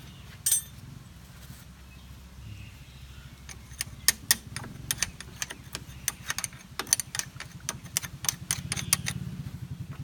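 An engine idling low and steady, with a quick run of sharp metal clinks and taps from about three and a half seconds in until near the end, as tools and parts are handled during repair of a combine harvester's track rollers.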